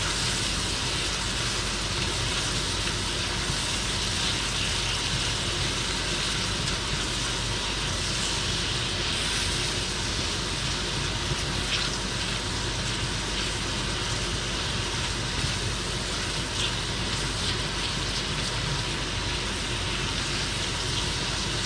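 Chopped Swiss chard stems sizzling in a stainless steel skillet, stirred now and then with a spatula, over the steady hum of a range-hood vent fan.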